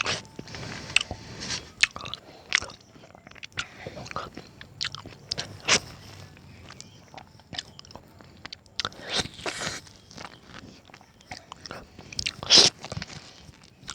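A person biting into and chewing a mango, with irregular wet mouth sounds and many short smacks; a few louder bites come about nine seconds in and near the end.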